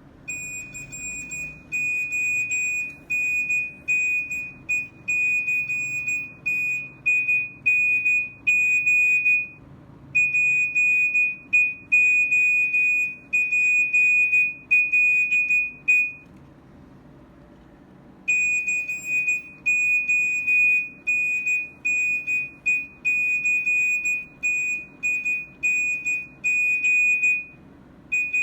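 Nokia 105 mobile phone's speaker playing a beeping ringtone: one high-pitched tone pulsing rapidly on and off in a stuttering pattern, with a short break about ten seconds in and a two-second break about sixteen seconds in before it starts again.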